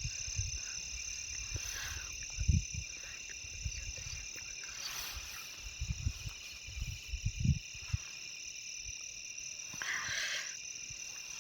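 Crickets chirping in a steady, continuous night chorus, with low thumps on the microphone now and then.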